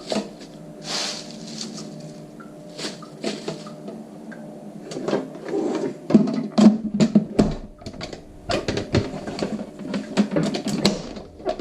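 Irregular plastic clatter, clicks and knocks as kitchen containers and a vegetable spinner are handled and set up, busiest in the second half, over a steady low hum.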